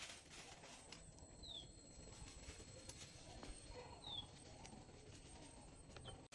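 Faint outdoor ambience with a small bird giving two short, high, falling chirps, about a second and a half in and again about four seconds in.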